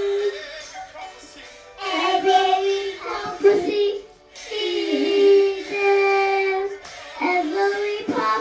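A young girl singing unaccompanied into a toy microphone: long held notes in three phrases with short breaks between them.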